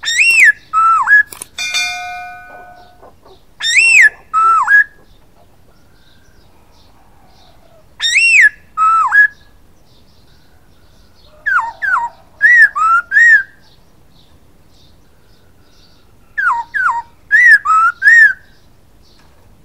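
A caged bird whistling loudly in short bursts of two to four clear notes, each note a quick rise-and-fall or a downward slide, with pauses of a few seconds between bursts. Near the start a short run of steady piping tones follows the first burst.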